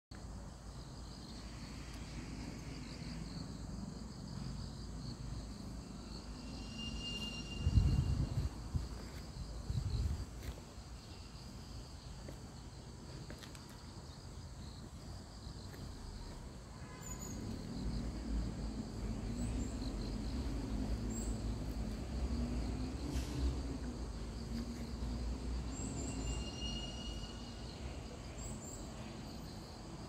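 Insects chirping steadily in an outdoor garden, a continuous high-pitched trill with a few short higher chirps. Two brief low rumbles of microphone noise around 8 and 10 seconds are the loudest sounds, and a softer low rumble runs through the second half.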